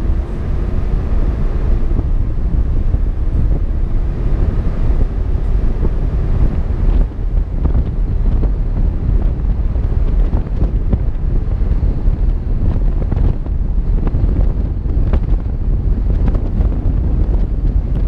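Wind buffeting the microphone of a camera on a moving vehicle, over the steady low rumble of the vehicle and its tyres on the road. A faint engine tone is heard in the first couple of seconds, and there are a few light clicks from the road surface.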